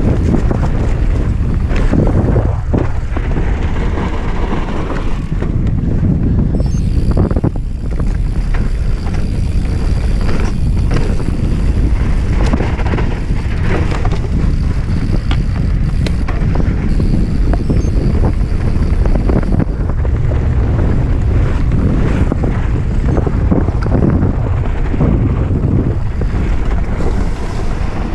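Wind buffeting the microphone: a loud, steady low rumble with rushing noise throughout.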